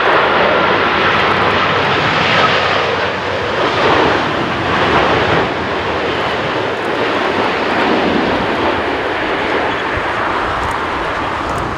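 Japan Airlines Boeing 787-8's twin GEnx turbofan engines and rushing air as the airliner flies low past on final approach: loud steady jet noise, easing slightly after about five seconds as it moves on toward touchdown.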